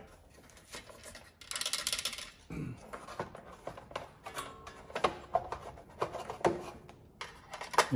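Plastic engine shroud being lowered onto a Briggs & Stratton single-cylinder engine and seated by hand: scattered light clicks and knocks of plastic against metal, with a brief scraping rustle about a second and a half in.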